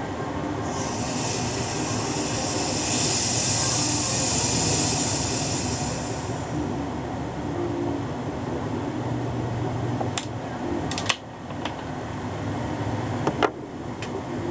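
Long hiss of pressurised gas escaping as the cap of a 2-liter Diet Coke bottle is unscrewed, building up and then fading away over about six seconds. A few sharp clicks follow near the end, over a steady low hum.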